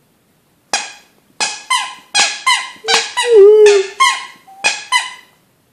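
A dog chewing a plush squeaky toy, setting off a quick run of about ten short, high squeaks, with one longer wavering squeal about midway.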